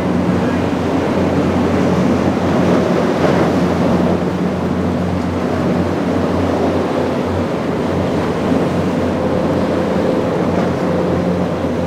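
Large party fishing boat's engines running with a steady low drone as it pushes through rough water, with waves splashing and wind buffeting the microphone.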